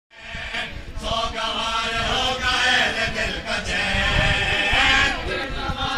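Male voices chanting a drawn-out, wavering mourning chant, typical of a noha recited at a Shia majlis.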